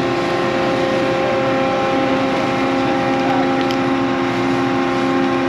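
A large farm machine's diesel engine running steadily at a constant speed.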